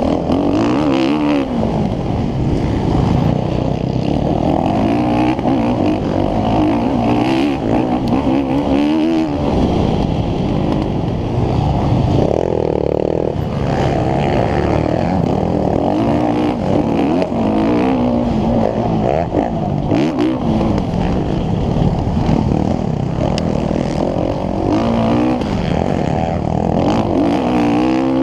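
Motocross bike engine, heard from on the bike, revving hard and dropping back again and again, its pitch rising and falling through corners and over jumps.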